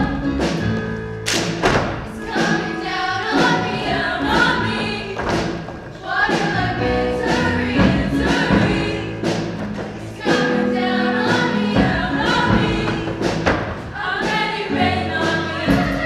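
All-female show choir singing in harmony over a pop accompaniment with a strong, thudding beat.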